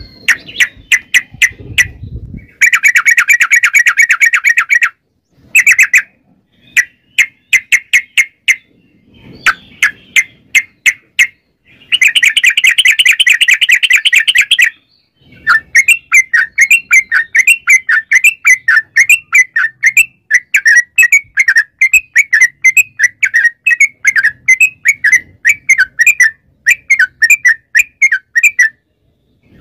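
Caged yellow-vented bulbul singing loudly: quick repeated chattering notes, broken twice by dense rattling trills, then a long unbroken run of wavering, bubbling notes through most of the second half.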